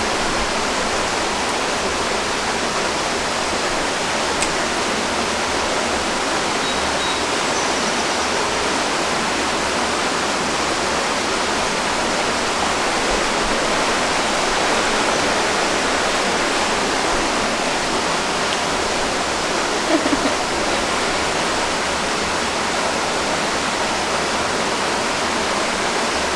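Steady rush of flowing water, an even unbroken hiss.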